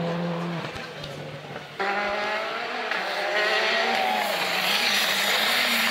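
Rally car engines at high revs. One car's engine fades as it drives away. After a sudden cut about two seconds in, a Hyundai i20 rally car's engine grows louder as it approaches and then holds loud.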